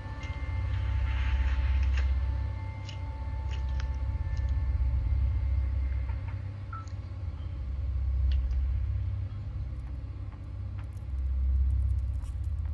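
Low rumble on a video doorbell's microphone, swelling and fading four times, with a few faint clicks.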